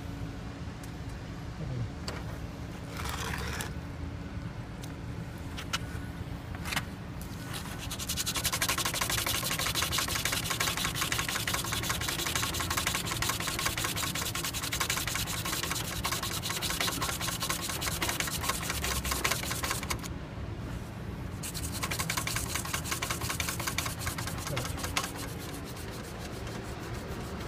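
Chrome tubing of a kart stand being scrubbed by hand with a crumpled metallic scrubbing pad: a fast back-and-forth rasp of metal on metal, rubbing off rust spots. After a few short scrapes it runs hard for about twelve seconds, stops briefly, then goes on for a few more seconds.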